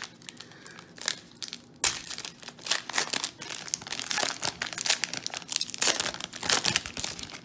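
2020 Donruss Baseball fat pack's plastic wrapper crinkling as it is handled and opened. Sparse crackles at first, then a dense run of crackles from about two seconds in.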